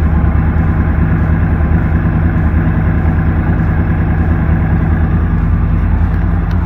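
2014 Yamaha YZF-R1's crossplane inline-four engine idling steadily through an Akrapovič aftermarket muffler.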